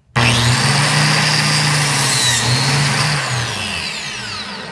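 Handheld biscuit joiner switched on, its motor and spinning blade running at full speed as it plunges into the board to cut a biscuit slot. About three seconds in it is switched off and winds down with a falling whine.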